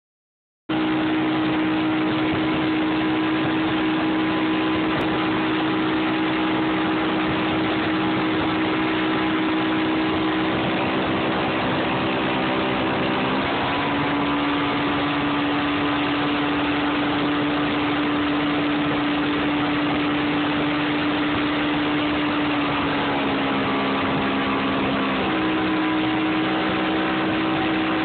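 Mercury outboard motor running steadily at speed, with a constant rush of wind and water. Its pitch drops slightly about halfway through, dips a little further near the end, then comes back up.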